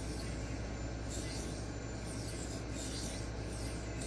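D2 steel knife blade being drawn freehand across a 1x6 inch Xarilk sharpening stone: a steady gritty rasp of repeated strokes, roughly one every 0.7 seconds.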